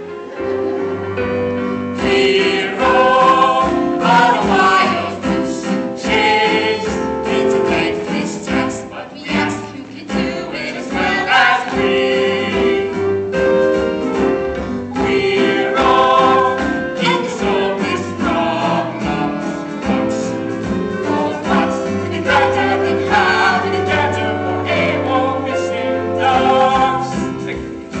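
Stage-musical number: a cast sings as a group over instrumental accompaniment with a steady bass line.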